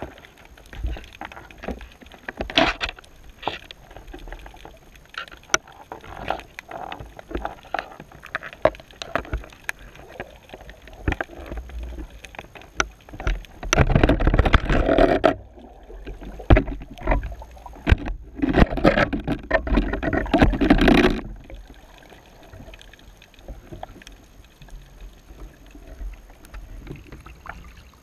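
Underwater sound through a camera housing: scattered sharp clicks and knocks throughout, then two longer stretches of rushing water noise about halfway through, as the baited camera rig is hauled up from the bottom to the surface.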